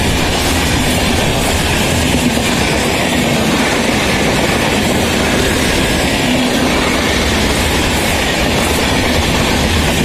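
Indian Railways passenger train's coaches running past at speed: a steady, loud noise of steel wheels on the rails.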